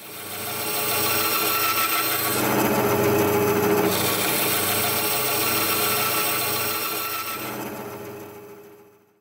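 Small bench-top electric saw with a thin vertical blade running and ripping a thin strip of wood: a steady motor hum under the cutting noise. It fades in at the start, is loudest a few seconds in, and fades out near the end.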